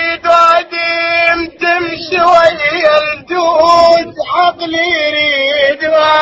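A single voice singing an Arabic song in Iraqi dialect without accompaniment, in phrases of long held notes with wavering ornaments, broken by short breaths.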